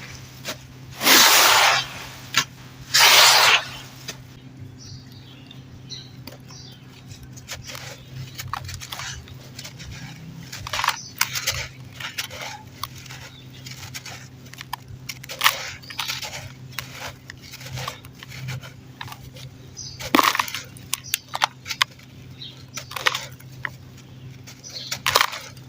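Clumps of dry dirt crumbling and crunching: many small crackles and cracks, with two longer, louder crumbling bursts in the first few seconds.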